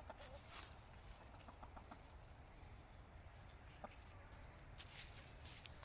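Chickens clucking softly, faint, a few short clucks in a row, with light scratching in the dry leaves and compost.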